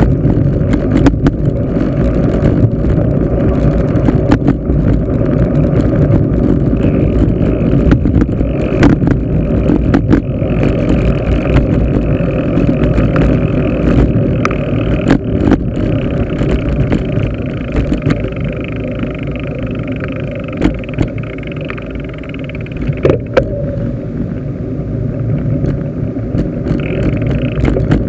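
Steady low rumble of wind on the microphone and road noise from a bicycle in motion, with scattered knocks and rattles from bumps. The rumble eases for a few seconds about two thirds of the way through as the pace drops.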